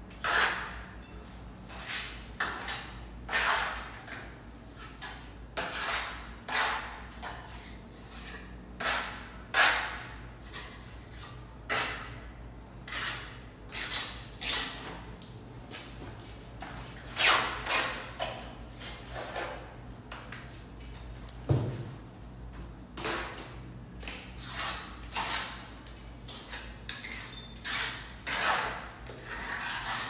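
Mason's trowel scraping and slapping cement mortar onto a concrete stair, in repeated short strokes about once a second. A single sharper knock comes about two-thirds of the way through.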